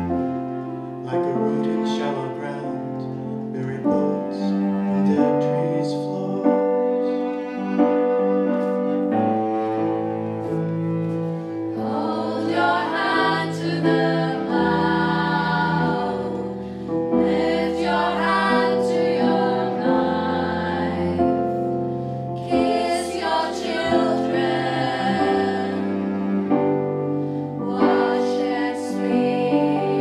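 Live band playing: acoustic guitar, cello, keyboard and bass under a group of singers holding long choral notes that swell in repeatedly.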